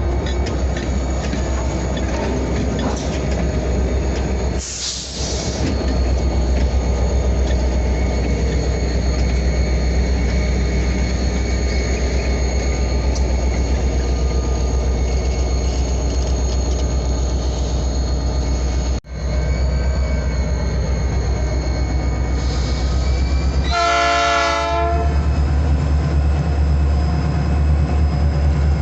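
Diesel switching locomotives working, a heavy steady engine rumble with high steady squealing tones over it. A brief hiss sounds about five seconds in, and a short horn blast comes about three quarters of the way through.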